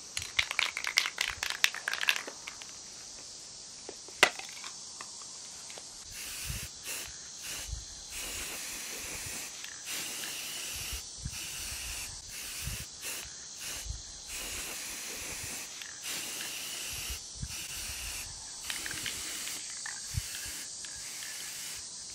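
Aerosol spray-paint can shaken, its mixing ball rattling rapidly for about two seconds, then a single click and a long run of spraying hiss in bursts with brief pauses.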